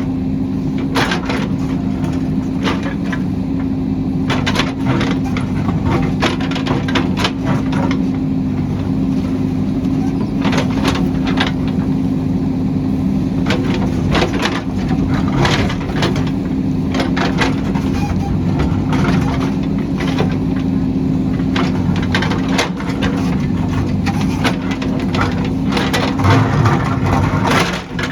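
JCB backhoe's diesel engine running steadily under load, with frequent sharp knocks and cracks of digging into the hillside.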